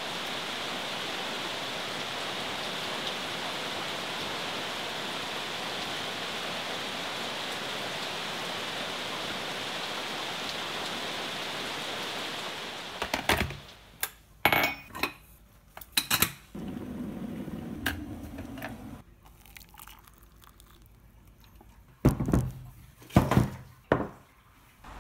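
Steady hiss of rain falling on forest foliage for about the first half. Then a series of sharp knocks and clinks as a ceramic cup and other objects are handled and set down on a wooden table, with a few seconds of softer pouring-like noise in between.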